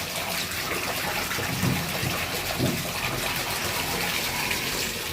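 Shower water from a Glacier Bay shower valve running steadily, turned up hot enough to steam. The hot-water limit stop has just been reset to allow hotter water.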